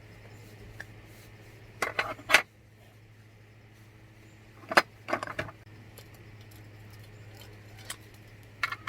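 Clinking and rattling of small hard objects in three short bursts, a few seconds apart, over a steady low hum.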